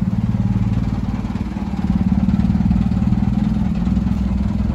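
Flatbed tow truck's engine idling steadily, a low even hum with a fast pulse that grows slightly louder about two seconds in.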